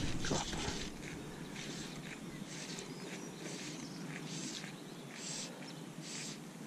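Fly line being stripped in by hand through the rod guides on a pike fly rod: short soft swishes repeating about once a second as the fly is retrieved.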